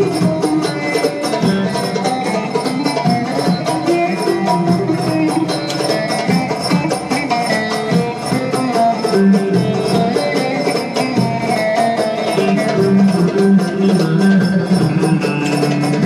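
Bağlama (long-necked Turkish saz) played with fast, even plucking strokes in a Turkish folk tune.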